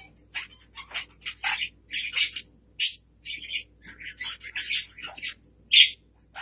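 Hahn's macaw making a rapid, irregular series of short, scratchy chirps and squawks, loudest near the end.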